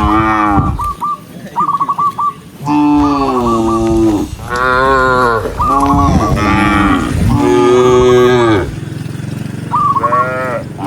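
A herd of cattle mooing: a string of long, drawn-out moos from several cows, one after another and sometimes overlapping. Quick repeated high notes are mixed in at times.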